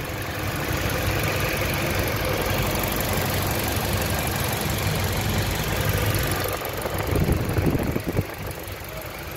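Toyota Innova petrol four-cylinder engine idling steadily, heard close up over the open engine bay; it runs smoothly after a cylinder head overhaul. A brief louder stretch comes about seven seconds in.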